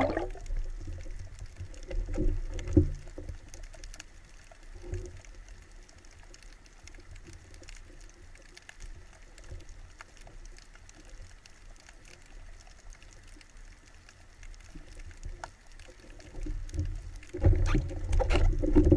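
Muffled underwater sound heard through a camera's waterproof housing: faint low water rumble with scattered light ticks, a few soft knocks in the first three seconds, and louder thumping and rubbing near the end as a speared bluefish is handled right against the speargun.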